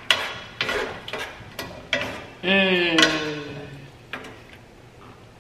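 Seasoning shaker shaken over a pan of sauce: a quick series of short rattles and taps. About two and a half seconds in comes a brief whine that falls in pitch.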